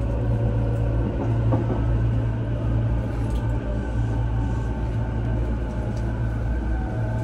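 On-board running sound inside a JR East E233-0 series electric train's motor car: a steady low rumble of the wheels on the rails, with a faint whine from the traction motors. Near the end the motor tones fall slightly in pitch as the train slows for a station.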